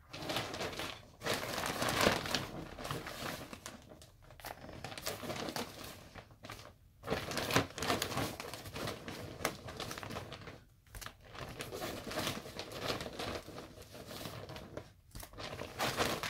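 Shopping bag rustling and crinkling as yarn is dug out of it by hand, in long stretches broken by a few brief pauses.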